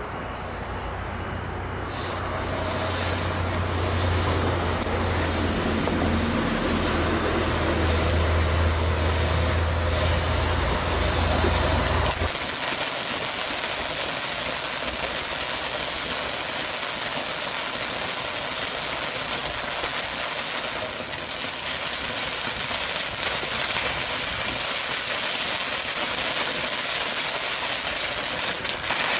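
Ground firework fountain burning, a steady hissing spray of sparks that builds within the first few seconds and carries on throughout. A low steady hum underneath stops suddenly about twelve seconds in, leaving the hiss brighter and sharper.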